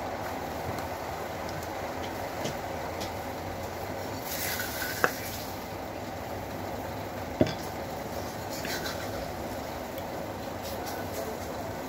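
Ceiling fan running with a steady whir. Two sharp clicks land about two and a half seconds apart, the first about five seconds in.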